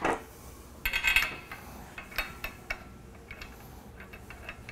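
Steel bolts and nuts clinking against a butterfly valve's lug body and the pipe flange as they are fitted and threaded in finger tight, with a loud flurry of metal clinks about a second in and lighter clicks after. A short swish at the very start.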